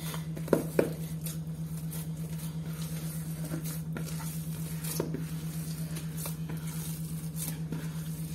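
Hands squishing and kneading a wet minced chicken, ground chickpea and egg kabab mixture in a plastic bowl: soft, irregular squelches, with a couple of louder ones about half a second in. A steady low hum sits underneath.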